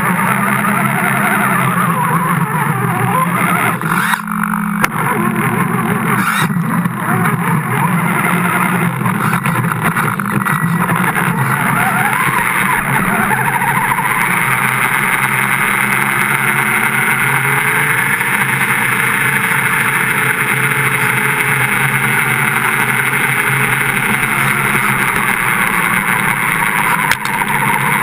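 A radio-controlled car running, heard from its own onboard camera: the motor and drivetrain run steadily under a constant wash of spray and grit noise as it drives through shallow water and then over sand. Its pitch rises and falls in the middle of the run, and the sound briefly drops out about four seconds in and again near the end.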